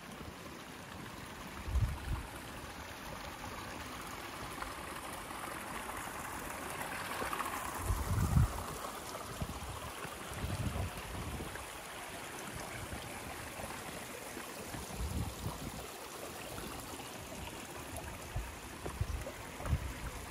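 Mountain stream rushing steadily over rocks, growing a little louder about a third of the way in. A few short low thumps come at irregular times.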